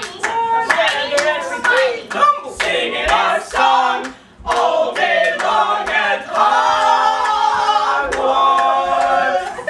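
Several voices singing overlapping a cappella parts, with sharp hand claps mixed in. There is a brief break a few seconds in, and the second half ends on long held notes.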